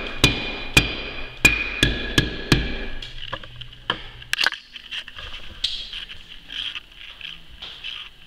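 Rubber mallet tapping on glass blocks, about six sharp knocks in the first three seconds, each with a brief glassy ring, to push the cut-free blocks out of the window. A few softer knocks follow.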